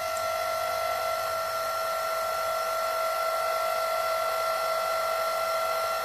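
24-volt linear actuator's electric motor and gearbox running as the rod extends: a steady whine at one even pitch.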